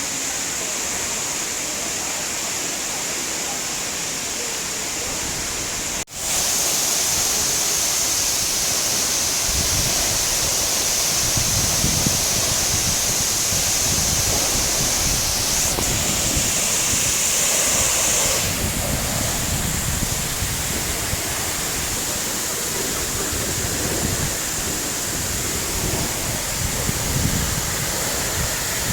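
Steady rushing of a waterfall's falling water, dropping out for an instant about six seconds in and coming back louder, with a low gusty rumble joining a few seconds later.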